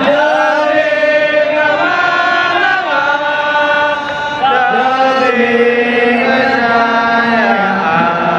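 Large crowd of football supporters chanting in unison, holding long sung notes that shift pitch together.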